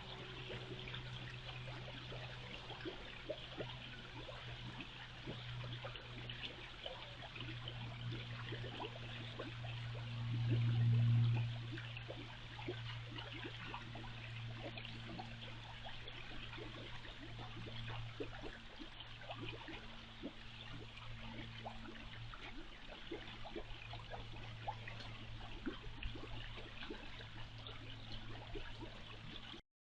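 Water running and trickling, a dense crackle of small splashes over a steady low hum that swells briefly about halfway through.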